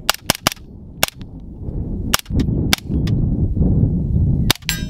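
Suppressed 9mm shots from a B&T APC9 with a JK Armament 155 PCX suppressor: three quick shots at the start, then single shots spaced about a second apart, and two more in quick succession near the end. A low rumbling noise runs under the later shots.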